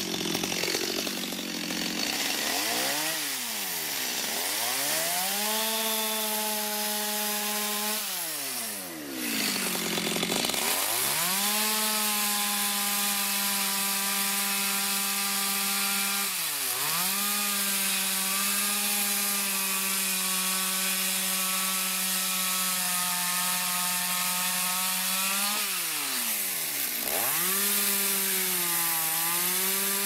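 Stihl two-stroke chainsaw cutting into a log end. It revs up from low speed and holds a steady high pitch through the cut, dropping back and revving up again three times: one longer dip about a third of the way in and two short ones later.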